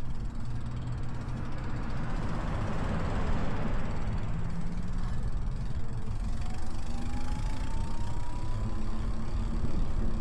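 Steady low wind and road rumble from an e-bike ride, picked up by a 360 camera's built-in mic in wind muffs. A broad swell of noise a couple of seconds in as an oncoming pickup truck passes, and a faint electric-motor whine rising in pitch in the second half as the bike speeds up.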